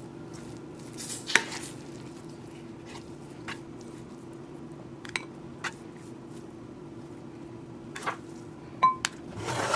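Dishes and utensils clinking and tapping now and then as food is plated, a few light knocks spaced a second or more apart, with one clink near the end ringing briefly. A steady low hum runs underneath.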